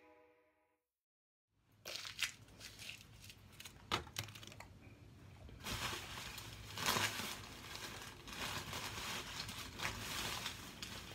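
Plastic candy wrapper crinkling and rustling in irregular bursts as it is handled, with small clicks; music fades out in the first second.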